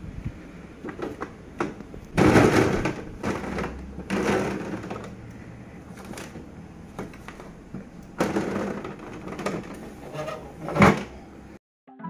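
Packaged foods and clear plastic fridge bins being handled and shifted: irregular rustling and knocking of wrappers and plastic, loudest about two seconds in, with a sharp knock near the end.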